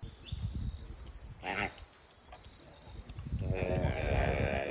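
A proboscis monkey's low, drawn-out moaning call, starting about three and a half seconds in and lasting over a second, over a low rumble.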